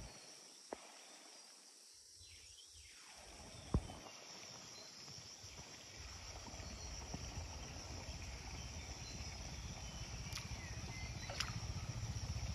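Rural outdoor ambience with insects chirring steadily at a high pitch. A low rumble grows louder after about six seconds, and a few faint clicks sound near the start and again near the end.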